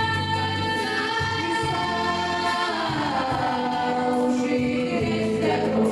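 Song: several voices singing long held notes in harmony over a backing track with a pulsing bass.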